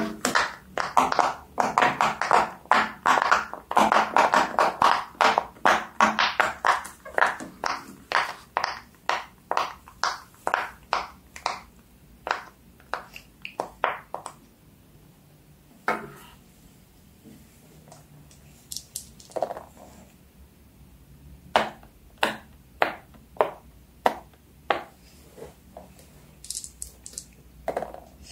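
Silicone pop-it fidget toy bubbles being pressed in, a quick run of short pops at several a second for about the first half, then slower scattered pops.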